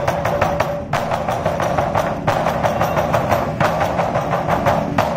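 A troupe of large lion dance barrel drums beaten together with sticks in a fast, dense rhythm, with brief breaks in the phrase.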